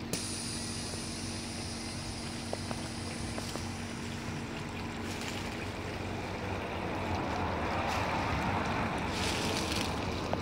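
Tiered garden fountain with water pouring and splashing from bowl to bowl, a steady noise that swells a little in the second half, over a steady low hum, with some wind on the microphone.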